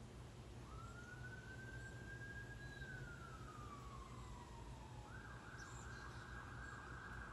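Faint emergency-vehicle siren: a wail that rises, holds and then slides down over about four seconds, switching about five seconds in to a fast yelp.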